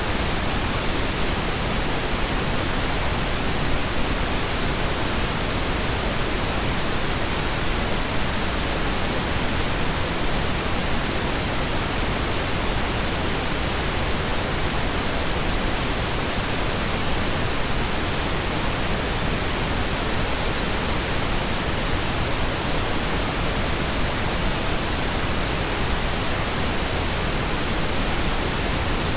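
Steady, unchanging pink noise, an even hiss with no tones, clicks or changes.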